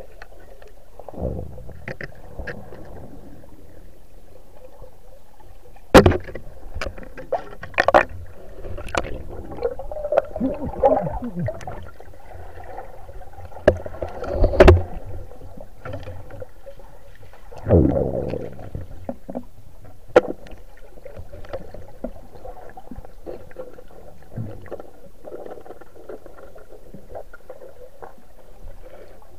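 Muffled underwater noise of a diver moving through the water, with water rushing and gurgling past the camera and several sharp knocks, the loudest about six seconds in and again near fifteen seconds.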